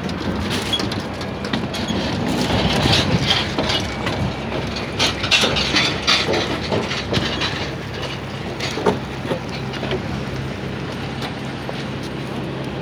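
Footsteps and a hard-shell suitcase knocking and clanking down the metal steps of an aircraft airstair, over a steady low machine hum and background noise from the apron.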